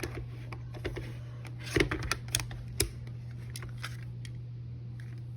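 A handful of sharp clicks and knocks from handling a Glock 20 pistol, clustered about two seconds in, over a steady low hum.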